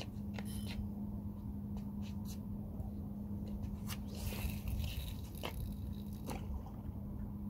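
Steady low rumble of wind and sea at the shore with a faint steady hum, broken by scattered light clicks and a brief hiss about four seconds in.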